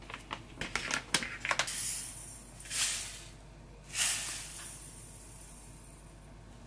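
A knife and pieces of butter click against a stainless steel mixing bowl in a quick run of taps. Then granulated sugar is poured into the bowl, hissing in two pours, the second starting suddenly at about four seconds and trailing off.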